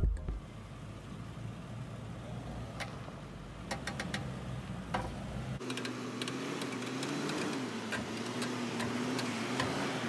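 Toyota Land Cruiser 200 creeping and turning slowly on a dirt track with crawl control engaged: from about halfway in, a steady, slightly wavering hum with many small ticks. Before that, only a few faint clicks are heard.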